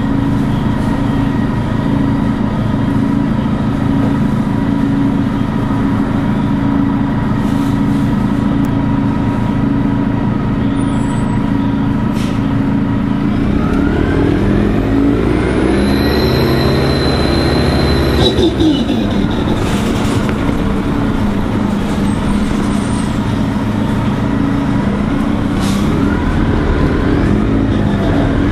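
Orion 05.501 CNG transit bus's natural-gas engine running loudly, steady at first, then pulling away about halfway through with engine pitch climbing and a high whine rising over it. The whine and pitch drop off a few seconds later, and the engine picks up again near the end.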